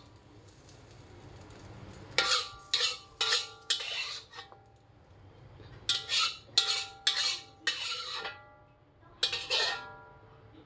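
Metal spatula scraping and knocking around an empty wok in three bursts of quick strokes, each stroke leaving the metal ringing briefly.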